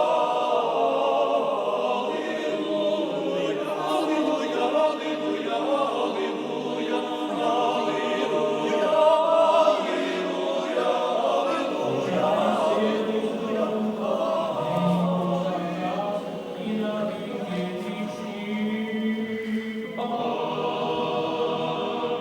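Choir singing Greek Catholic liturgical chant unaccompanied, with low voices holding long sustained notes beneath the melody.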